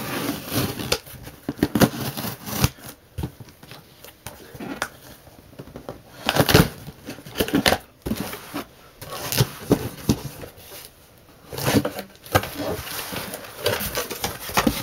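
Knife slicing packing tape along the seams of a cardboard box, then the cardboard flaps being scraped and pulled open: a string of irregular scrapes, rustles and knocks.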